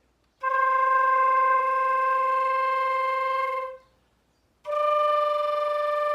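Transverse flute playing two long held notes a step apart, C then D, the first rising steps of a C-major scale played with flutter-tonguing (frulato). There is a short break for breath between the notes.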